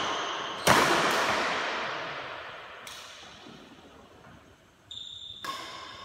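Badminton racket striking a shuttlecock with a sharp crack about half a second in, followed by a lighter hit, the sound ringing on in the large hall's echo. A faint tap follows, then near the end brief high squeaks and another racket hit.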